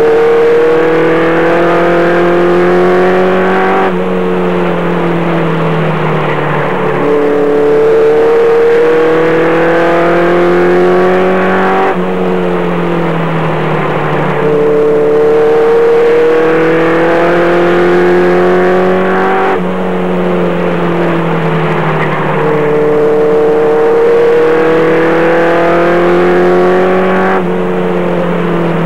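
Race truck's engine heard from inside the cab, running hard on a short oval: its pitch climbs steadily along the straights, then drops sharply as the driver lifts for the turns, about every eight seconds.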